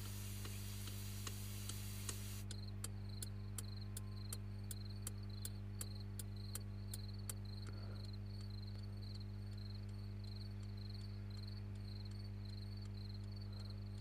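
Car turn-signal indicator ticking steadily, about three ticks a second, over a low steady hum. A hiss of static cuts off suddenly about two and a half seconds in, and the ticks grow fainter after about seven seconds.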